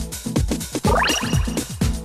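Electronic dance music with a steady thumping kick-drum beat and a rising synth sweep about a second in.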